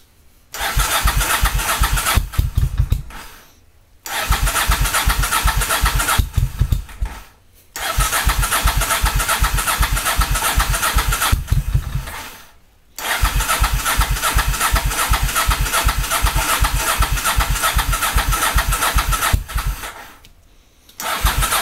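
A cold motorcycle engine being cranked on its electric starter in about five long attempts of several seconds each, with short pauses between them. The engine turns over in fast, even pulses but does not catch.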